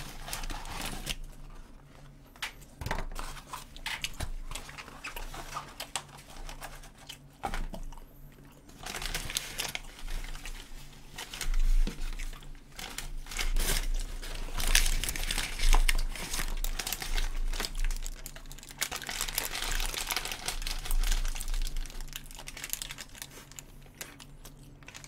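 McDonald's paper wrappers and packaging crinkling and rustling as they are handled, coming and going and thickest in the middle stretch, with scattered light clicks.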